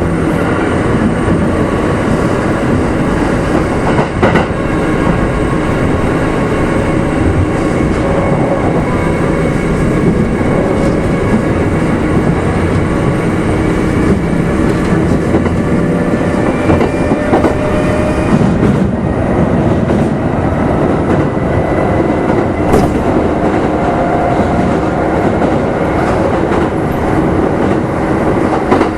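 Onboard running sound of a Kintetsu 2610 series electric train, heard in motor car Mo 2669: steady rolling noise with wheel clatter over the rails and a faint traction motor hum, and a couple of sharp clicks along the way.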